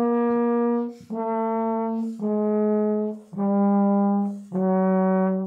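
A pBone plastic trombone plays five held notes, each about a second long and each a step lower than the last, as the slide is pushed out. Lengthening the tube lowers its resonant frequency.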